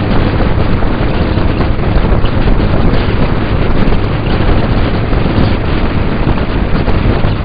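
Heavy wind rushing over a motorcycle-mounted camera's microphone at road speed, with a low motorcycle engine drone underneath.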